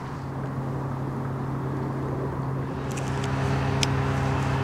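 Steady low droning hum, with a few short sharp clicks about three seconds in.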